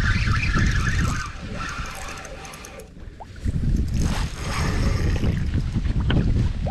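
Wind buffeting the microphone on an open skiff: a gusty rumble that eases after about a second and picks up again after about three and a half seconds.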